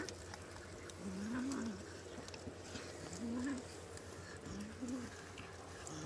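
Cats meowing while they crowd around food. Three low calls, each rising and then falling in pitch over about half a second, come about one and a half seconds apart.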